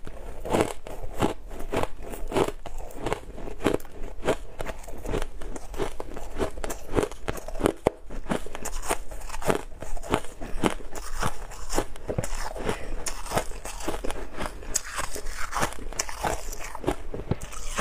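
Close-up biting and chewing of frosty, snow-like ice chunks: a steady run of crisp crunches, two to three a second, with a brief break about eight seconds in.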